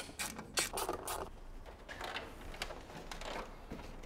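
Quiet clicks, taps and light rattles of plastic engine-bay covers being handled and fitted back into place, with a short scraping rustle about a second in.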